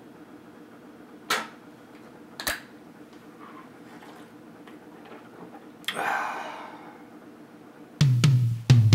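Low steady hum, with two sharp clicks in the first few seconds and a short hissing burst about six seconds in that fades over a second. Near the end, loud music with a drum kit cuts in abruptly on the cut to black.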